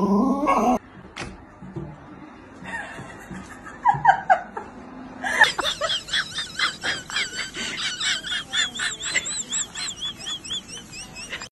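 High-pitched rapid laughter: a long run of quick giggles that starts about five seconds in. It is preceded by a short dog vocalisation that cuts off under a second in.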